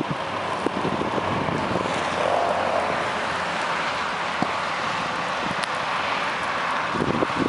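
Steady vehicle engine noise, with wind on the microphone.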